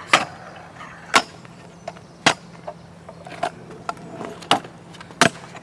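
A series of sharp knocks, about one a second.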